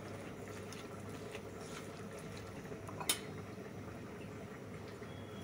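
A hand squeezing and mixing sliced onions with oil and ground spices in a non-stick frying pan. A single sharp clink against the pan comes about three seconds in.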